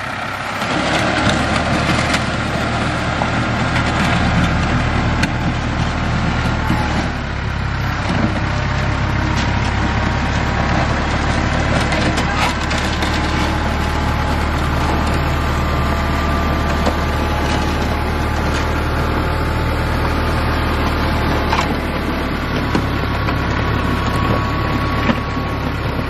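Compact tractor engine running steadily while its front-loader bucket scrapes along a concrete pad, pushing up hay with a crunching, scraping noise.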